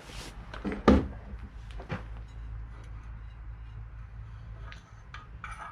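A few sharp knocks and clanks of metal parts and tools being handled, the loudest about a second in, over a steady low hum.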